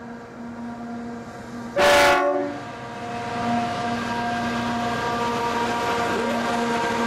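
Pacific National 92 class diesel locomotives hauling an empty coal train pass close by. About two seconds in the horn gives one short, loud blast of several tones together. Around it the locomotives' diesel engines run steadily, growing louder as they come alongside.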